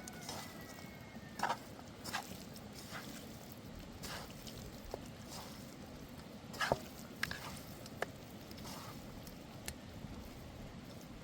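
Irregular sharp clicks and knocks, a dozen or so, the loudest about a second and a half in and just past halfway, over a steady low hiss.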